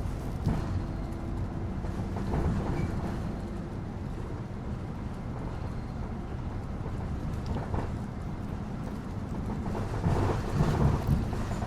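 Bus riding along: a steady engine hum and road rumble, with occasional brief rattles and bumps and a louder run of them near the end.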